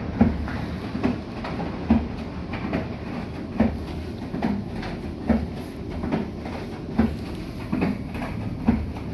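Bosch i-Dos WGG154A10 front-loading washing machine in a wash cycle: the drum turns and the laundry tumbles and drops with regular soft thuds, a little under one a second, over the low hum of the motor.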